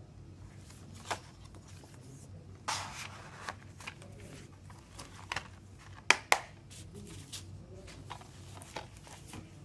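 Handling a CD in a black plastic DVD-style case: paper booklet and photo card rustling, scattered light clicks, and two sharp plastic snaps in quick succession about six seconds in as the case is shut.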